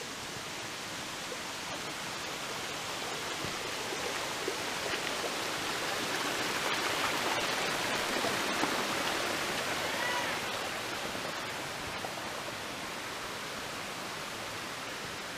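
Creek water rushing over rock ledges in small cascades, a steady wash that grows louder about halfway through and eases off again near the end.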